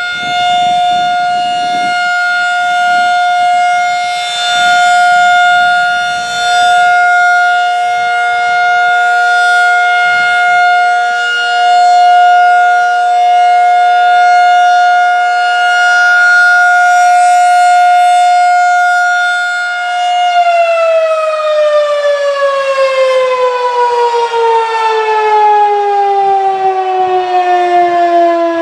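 Federal Signal 2001-SRN rotating electromechanical siren sounding its steady alert tone of about 713 Hz, the level swelling and dipping slowly as the horn turns. About twenty seconds in the siren starts winding down, its pitch falling steadily at the end of the alert cycle.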